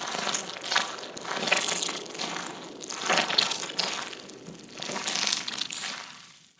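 A person's footsteps walking through mud, each step a wet, noisy burst, at an uneven walking pace; the steps fade out near the end.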